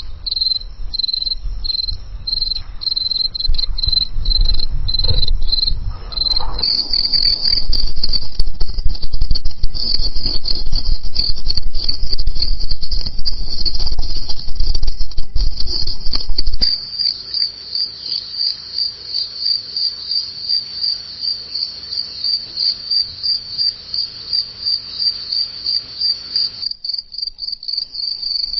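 Crickets chirping: a continuous high trill heard across several recordings that change abruptly about 6 s in, 16 s in and near the end. A low rumble lies under the first half, and in the later stretch the chirps come in even pulses about two a second.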